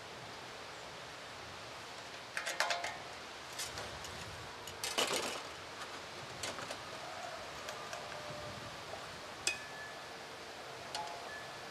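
Scattered light metallic clinks and clicks, a dozen or so spread irregularly, some ringing briefly, over a steady background hiss.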